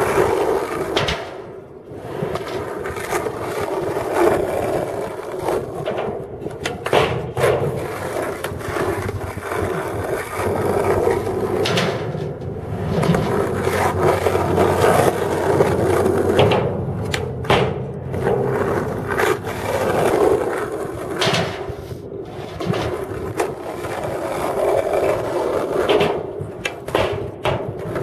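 Skateboard wheels rolling on rough asphalt, a steady rumbling noise, broken several times by sharp clacks of the board hitting the ground.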